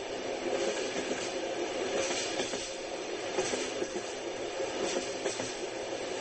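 Train running on the rails: a steady rumble with the wheels clattering lightly over the track.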